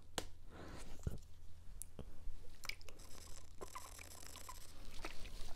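A plastic Cirkul water bottle being handled with a few sharp clicks and knocks. About three seconds in comes a hissing sip drawn through its flavor-cartridge lid, with small gulps as the water is swallowed.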